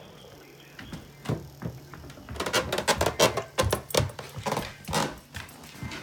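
A flurry of irregular clicks, taps and knocks, thickest from about two seconds in, from hands fumbling at a door.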